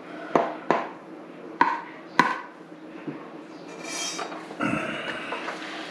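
Kitchen knife chopping hard-boiled eggs in a bowl: four sharp knocks of the blade against the bowl in the first two and a half seconds. Then a brief scrape and some handling clatter as the knife is put down.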